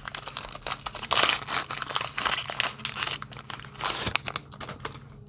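Pokémon booster pack's foil wrapper crinkling and tearing as it is ripped open by hand, a quick run of crackles that thins out near the end.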